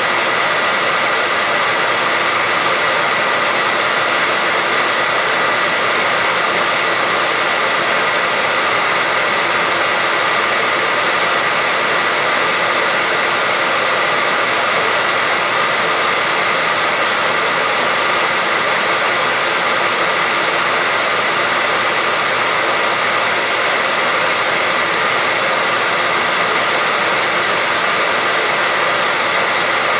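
Hair dryer running steadily: an even rush of blown air with a faint high whine from the motor.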